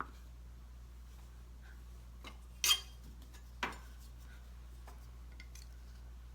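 Two sharp clacks of hard objects being handled on a work surface, the first about two and a half seconds in and the second about a second later, with a few faint ticks, over a steady low hum.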